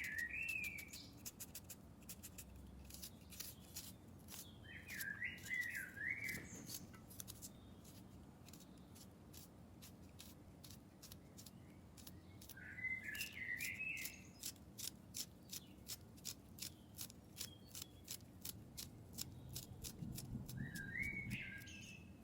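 A bird singing short warbling phrases four times, several seconds apart, over a run of quick light clicks.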